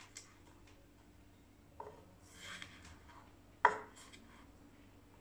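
A chef's knife slicing a small piece of peeled ginger on a wooden cutting board: a few scattered knocks of the blade on the board and a brief scrape, with the loudest knock sharp, about three and a half seconds in.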